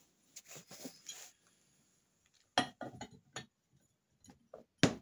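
Machined aluminium crossbow stock parts clinking and knocking against each other and the bench as they are handled and fitted together. An irregular scatter of short sharp clicks, soft at first and loudest near the end.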